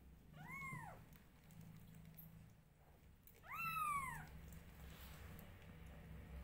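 Newborn kitten meowing twice, each a short call that rises and then falls in pitch. The second call, about three and a half seconds in, is louder.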